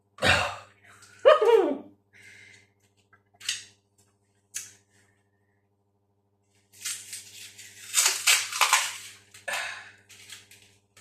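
Door closer packaging being handled and unwrapped: two sharp squeaks in the first two seconds, a few small knocks, then a few seconds of crinkling and rustling wrapping.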